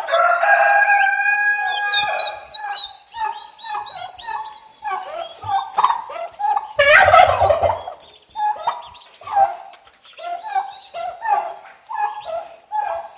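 Poultry calling: a rooster crows once at the start, followed by a steady run of short clucks and calls from the flock, with a louder, harsher call about seven seconds in.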